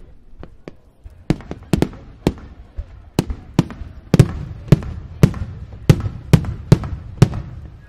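Display fireworks bursting in a rapid volley of sharp bangs, about two a second, each trailing a low rumbling echo. A few scattered bangs come first, and the volley builds from about a second in.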